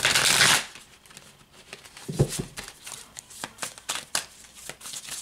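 A deck of tarot cards being shuffled by hand: a loud riffle of cards flicking off the thumb at the start, then a run of light clicks and slaps as the cards are shuffled overhand, with a soft thump about two seconds in.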